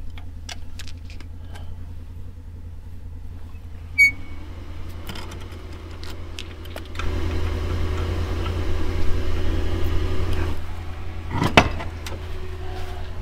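Lug nuts being worked off a side-by-side's wheel with a ratchet and breaker bar: light clicks, a sharp metallic clink about four seconds in, and a thump near the end as the wheel is pulled free. Behind it a vehicle engine idles steadily and grows louder for about three seconds past the middle.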